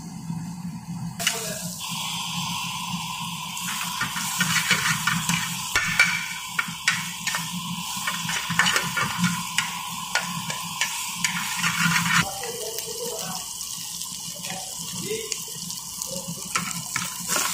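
Lumps of fat sizzling as they fry in a steel pan, the hiss starting about a second in. A metal spatula scrapes and clicks against the pan, and a steady low hum runs underneath.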